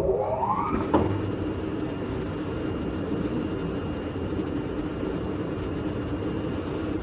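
Fabric CNC knife-cutting machine running: a motor whine rises in pitch over the first second, a sharp click comes about a second in, then a steady mechanical drone holds.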